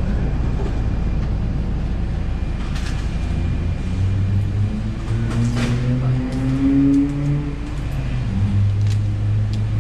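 A steady low rumble with a few light clicks. From about four seconds in, low held tones step up and down in pitch.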